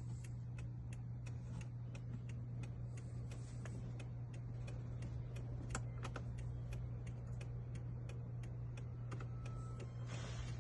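Steady, even ticking, about three ticks a second, over a constant low hum.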